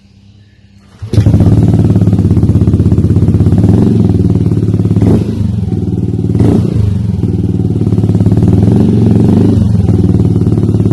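Yamaha Aerox scooter engine running through an aftermarket Triton Neuro carbon-kevlar exhaust. The exhaust note cuts in abruptly about a second in and holds a steady low-rev drone, with two short throttle blips about halfway through.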